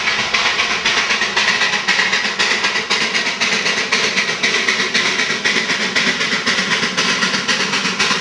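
Darjeeling Himalayan Railway B Class 0-4-0 saddle tank steam locomotive working up the line, its exhaust chuffing at about four beats a second over a steady hiss of steam.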